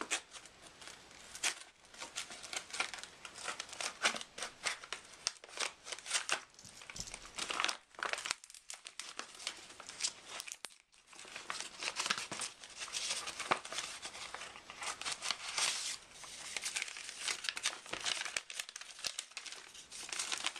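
Packaging being torn open and crinkled by hand, a long run of irregular crackling and tearing with a couple of brief pauses.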